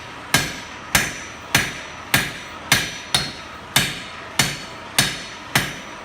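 Blacksmith's hammer striking hot steel on an anvil in a steady rhythm, about ten blows a little under two a second, each with a short metallic ring, while finishing a drawn-out taper.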